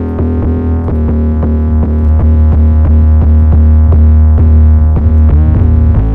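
Electronic trap beat with a loud, sustained distorted 808 bass under a steady pattern of drum-machine hits. The 808 note changes pitch about five seconds in. It is a bass patch built from Logic Pro's stock synths and distortion plugins.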